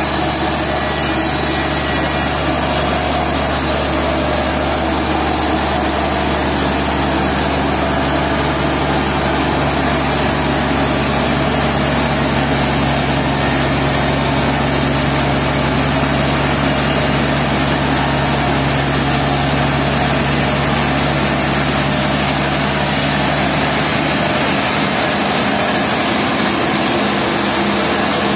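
Sawmill engine running steadily under a dense mechanical noise. Near the end its deepest hum drops away while the noise carries on.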